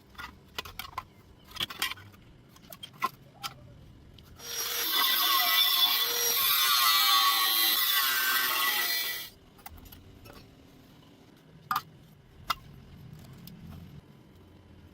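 A handheld power tool running on iron for about five seconds, its pitch wavering as it works, with scattered metallic clicks and taps before and after.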